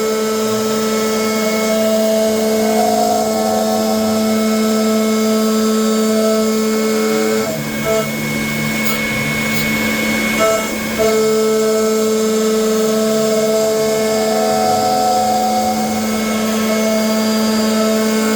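CNC router running while cutting a shallow 1.5 mm-deep pass with a 10 mm bit: a steady, loud machine whine. Higher tones over it drop out for about three seconds near the middle, then come back.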